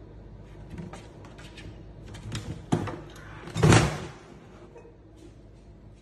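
A motion-sensor kitchen trash can opening as a dog pokes its head in. Light clicks and taps come first, then a short, loud clatter about two-thirds of the way in as the lid swings up.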